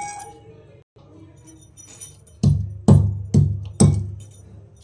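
Pestle pounding black cardamom pods in a mortar to crack them for their seeds: a few light knocks, then four heavy strikes about half a second apart in the second half.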